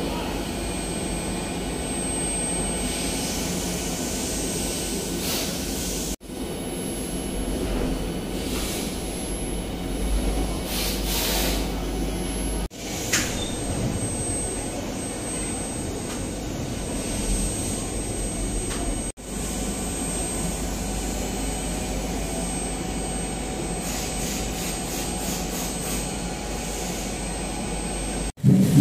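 Preair LGR165 commercial low-grain refrigerant dehumidifier running: a steady rush of fan air over a low hum, with a faint thin high whine. The sound cuts out for a moment about every six seconds.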